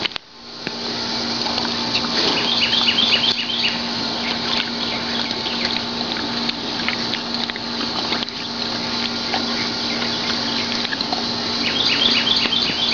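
Tennessee Walking Horse crunching and mouthing ice cubes from an open hand, a dense run of small crackling clicks. Short chirping calls come in twice in the background.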